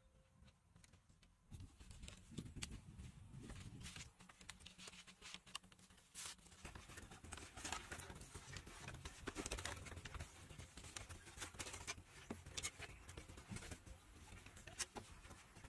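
Faint, irregular clicking and tapping of thin bamboo strips knocking against each other and the roof battens as they are laid and tied by hand. The clicks start about a second and a half in.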